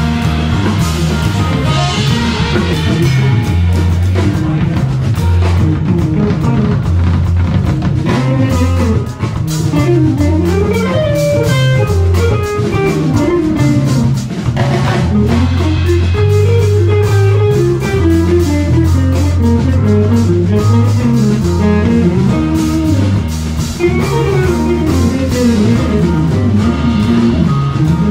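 Live band playing an instrumental jam: electric guitar and bass guitar over a drum kit with cymbals, as a steady groove with a moving melodic line.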